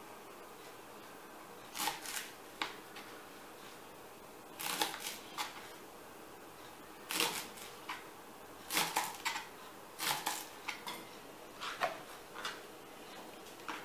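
Kitchen knife chopping leeks on a plastic cutting board: irregular clusters of sharp taps a second or two apart.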